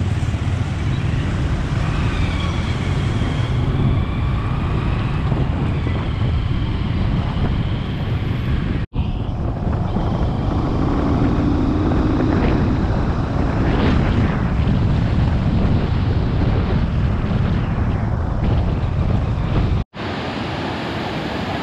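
Wind buffeting an action camera's microphone over a motorbike engine while riding, broken off abruptly twice by edits. In the last couple of seconds, a steady rush of water from cascading falls.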